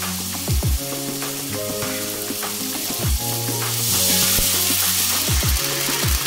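Sauce and sesame oil sizzling as they hit a hot pan of sliced shiitake mushrooms, the hiss swelling louder about four seconds in. Soft background music with held low notes and a gentle beat runs underneath.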